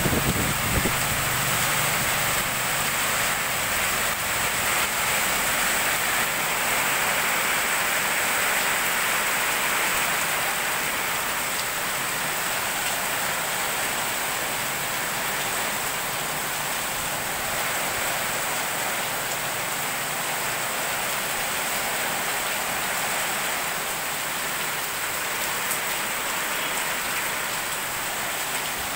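Heavy tropical downpour: steady rain with an even rushing hiss, a little louder over the first ten seconds or so.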